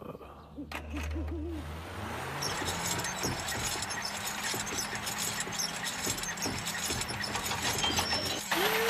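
Cartoon night-time sound effect: an owl hooting a few short times about a second in, then a steady rushing noise that grows slowly louder.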